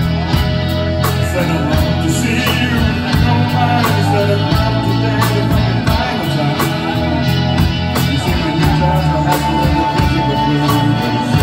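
Live rock band playing: electric bass, electric guitar and drum kit, with a steady bass line, regular drum hits and a held guitar note in the second half.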